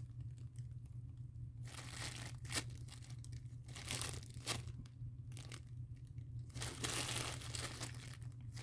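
Plastic packaging crinkling and rustling in irregular bursts as it is handled, thickest about seven seconds in.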